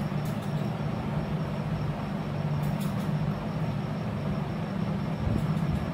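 Steady low mechanical hum over a constant rumble, with a few faint ticks.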